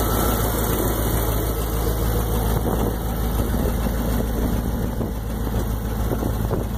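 1995 Dodge Ram 2500's V8 engine idling steadily.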